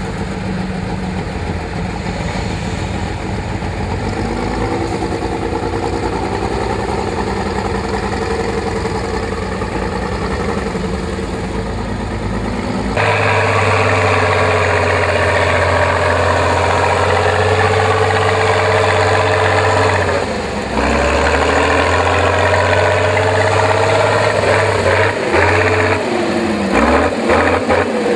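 Praga V3S trial truck's engine working hard under load off-road. The engine turns steadily at first, then runs louder and higher about halfway through, with a short drop in revs around the twentieth second. Near the end come quick blips of revving up and down.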